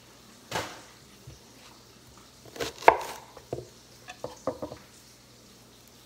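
Kitchen knife cutting through a peeled onion and knocking on a wooden cutting board: a few scattered knocks, the loudest a little under three seconds in, then several lighter taps around four and a half seconds.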